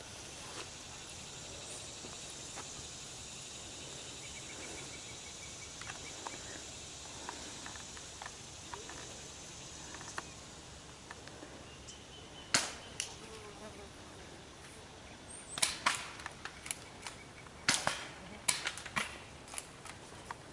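Spring-powered airsoft guns firing in woods. There are two sharp snaps about twelve seconds in, then a rapid string of snaps in the last five seconds, over a steady high insect buzz.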